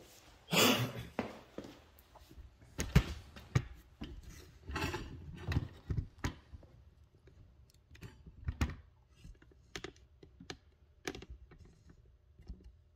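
Camera handling noise: a rustle of clothing and movement, then a string of irregular knocks and clicks as the camera is moved and reframed, the sharpest knock about three seconds in.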